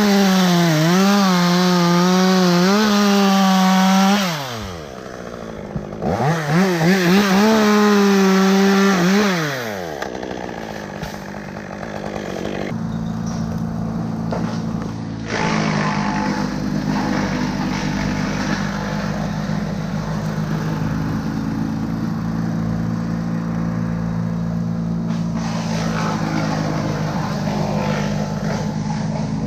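Chainsaw run at full throttle in two stretches of about four seconds each, its pitch dipping and wavering, then winding down about ten seconds in. After that a steadier, lower-pitched engine runs.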